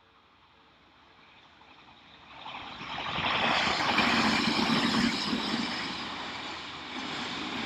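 Odakyu Odawara Line electric train approaching and running past at the level crossing: its noise swells quickly about two and a half seconds in, is loudest around the middle, then eases slightly while staying loud.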